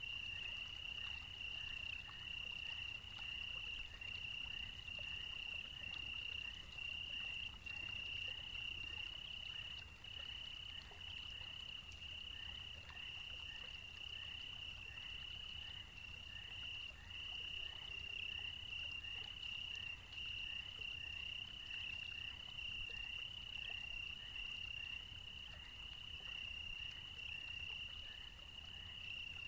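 Chorus of calling animals: a steady, unbroken high trill, with a fainter, lower chirp repeating at an even pace, about one and a half times a second.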